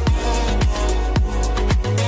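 Background music with a steady dance beat, about two beats a second, over a deep bass line.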